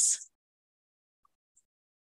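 The tail of a spoken word, ending in a hiss, then dead silence.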